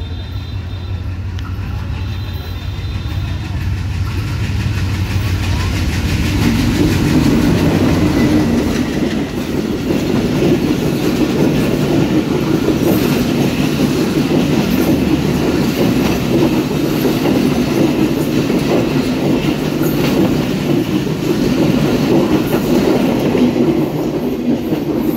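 Diesel-hauled passenger train approaching and passing close by: a low locomotive engine rumble grows over the first several seconds. Then a long rake of passenger coaches rolls past, with steady clattering of wheels over the rail joints.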